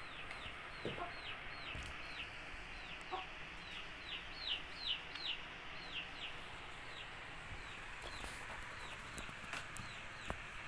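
A bird peeping: a run of short high peeps, each falling in pitch, about three a second, thinning out over the second half.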